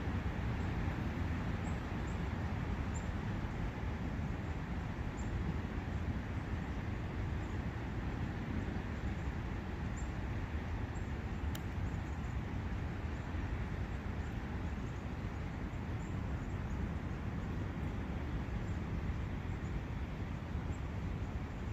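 Steady rushing of wind and a forest brook, with faint high bird chirps every second or so and a single sharp click about halfway through.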